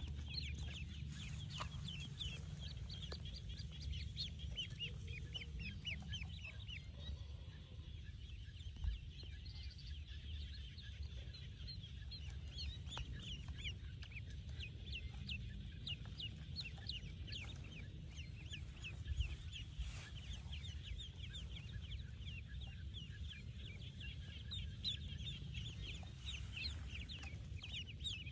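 Ducklings peeping continuously, many short high peeps overlapping, over a low steady rumble. Two soft thumps come through, about a third of the way in and again about two-thirds through.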